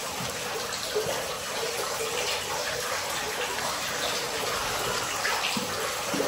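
Steady sound of water, with a few faint soft knocks as pieces of turnip are set into a pan of vegetable broth.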